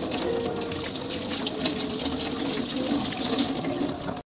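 Tap running in a steady stream into a stainless steel sink while soapy hands are rubbed and rinsed under it. Cuts off suddenly near the end.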